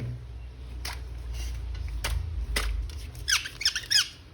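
A few sharp clicks, then, about three seconds in, a quick run of short high squeaks, each falling in pitch.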